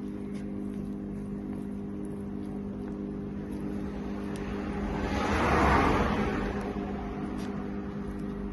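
A vehicle driving past, its noise swelling to a peak about halfway through and fading again, over a steady electrical hum that fits a microwave oven running.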